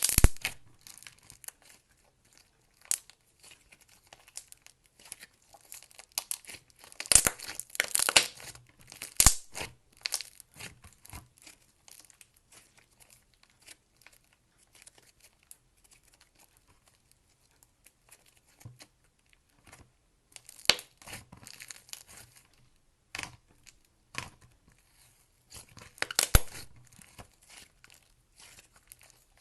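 Clay slime being kneaded and stretched by hand, giving bursts of crackly pops and clicks with quieter gaps between.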